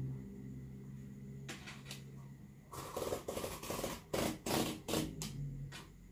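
Utility knife slicing through a corrugated cardboard box in a series of short scraping strokes, thickest from about three to five seconds in, over a faint low hum.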